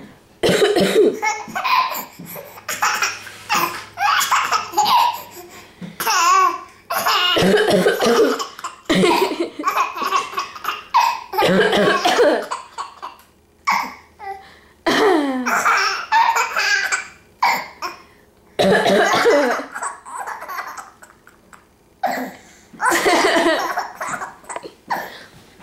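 A baby's belly laughs in about eight fits, each set off by a person's deliberate coughing.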